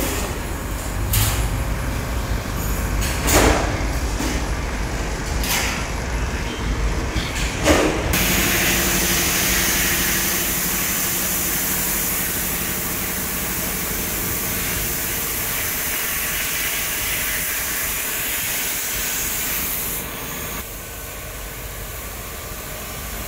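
A few sharp metal clunks about two seconds apart, then, about eight seconds in, a loud steady hiss of compressed air from the spray-painting booth starts, with a low hum under it. The hiss drops away a few seconds before the end.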